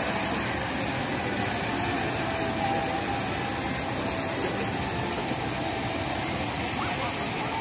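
Water from a large fountain jet splashing down into its basin: a steady rushing hiss.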